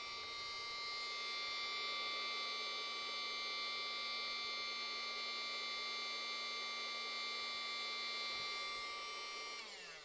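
Small battery-powered electric air pump of a homemade smoke machine running steadily with a buzzing hum, pushing smoke out through the hose. Near the end it is switched off and its pitch falls as it winds down.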